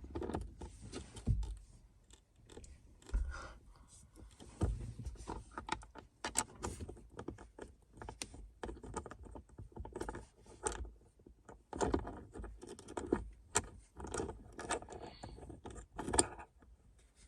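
Phone mount parts being handled and fitted by hand: irregular clicks, light rattles and scrapes of small metal and plastic pieces.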